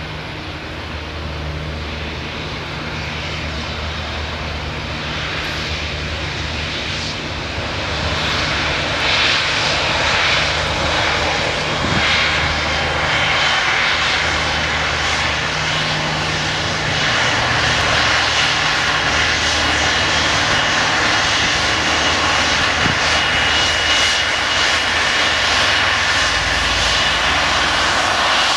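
Airbus A330-300's Rolls-Royce Trent 700 turbofan engines running at low thrust as the airliner rolls slowly on the ground: a steady jet rumble with a faint high whine, growing louder as it comes closer.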